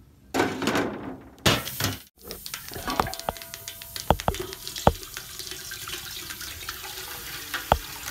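An aluminium cooking pot clanking as it is set down on a cast-iron wood stove: several sharp knocks, the pot ringing briefly after them. Near the end, water begins pouring into the pot with a steady splashing hiss. A few loud noisy bursts fill the first two seconds.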